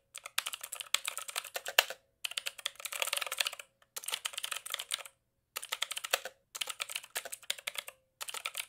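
Computer keyboard typing: quick runs of keystrokes with short pauses between them, typing out a terminal command.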